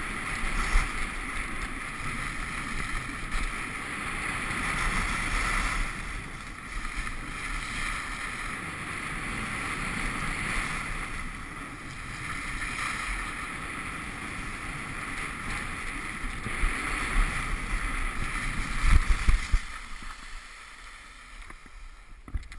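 Skis scraping and carving on packed snow with wind rushing over a GoPro during a fast downhill slalom run, the hiss rising and falling every few seconds. A few louder knocks come near the end, and then the sound drops off as the skier slows.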